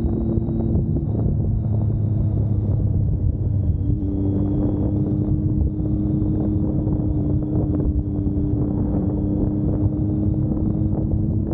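Vehicle engine running at a steady speed, its note shifting slightly about four seconds in, with wind buffeting the microphone.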